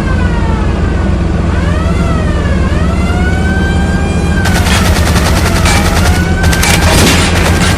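Vintage car-chase sound effect: a car engine runs under a rising and falling siren wail, and from about halfway in, rapid gunfire rattles over it.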